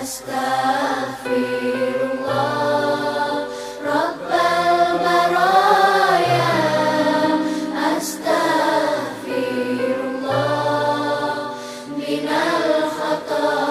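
Background music: a slow vocal chant with long, wavering held notes over a low steady drone.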